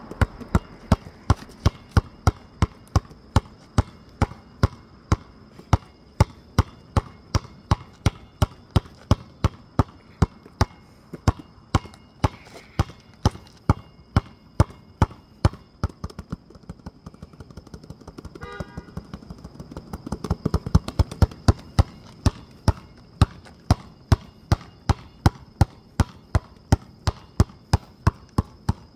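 A basketball dribbled hard and steadily on a hard outdoor surface, about two to three bounces a second. The bounces go softer and sparser for a moment about two-thirds of the way in, then come quicker for a couple of seconds before the steady rhythm returns.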